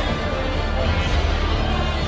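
Background music with heavy bass and sustained tones.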